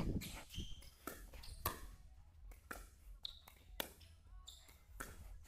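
Pickleball rally: sharp, irregularly spaced pops of paddles striking a plastic pickleball, mixed with the ball bouncing on the court.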